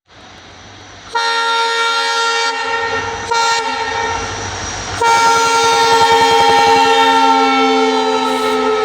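WDP4D diesel locomotive's horn sounding: a blast starting about a second in, then a long, louder blast from about halfway through, with the train's rumble underneath.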